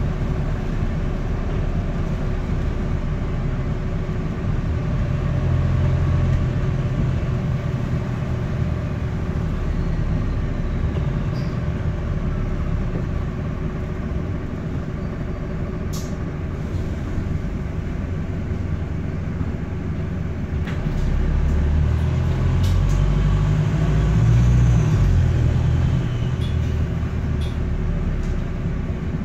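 Wright StreetDeck double-decker bus heard from the upper deck on the move: the four-cylinder diesel engine and drivetrain run with a steady low rumble and hum, pulling harder and louder about five seconds in and again from about twenty-one to twenty-six seconds in. A few faint rattles come from the cabin. The exhaust is blowing, meaning it leaks.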